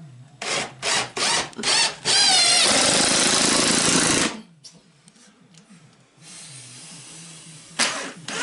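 Cordless drill driving screws into wood: a few short trigger bursts, then a loud run of about two seconds with the motor's pitch wavering, then a quieter stretch and another short burst near the end.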